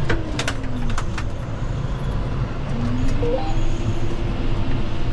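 John Deere tractor's diesel engine running under the cab: its note sinks over the first second, then climbs back up about three seconds in, with a few sharp clicks near the start.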